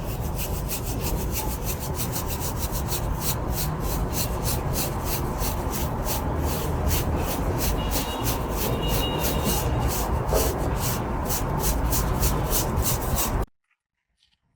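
Steady rhythmic scraping, about three strokes a second, that cuts off suddenly near the end.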